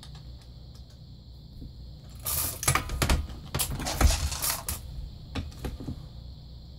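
Brass 9mm cartridge cases clinking and rattling against each other, a jangle of metal on metal lasting about two and a half seconds from around two seconds in, with a few lighter clicks after it.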